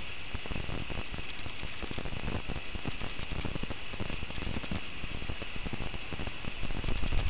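Outdoor ambience: a steady hiss with irregular low thumps and rustling throughout.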